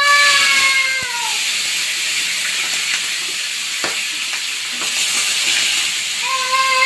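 Rabbit meat sizzling steadily as it shallow-fries in hot oil. A long, drawn-out pitched wail fades out about a second in, and another begins near the end.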